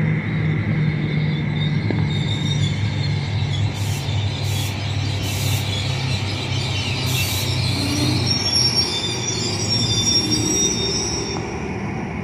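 NJ Transit Bombardier ALP-45DP dual-mode locomotive running on diesel, a steady low engine hum, as its passenger train rolls slowly alongside. High-pitched squealing from the train's wheels and brakes grows stronger from about eight to eleven seconds in as the train slows to a stop.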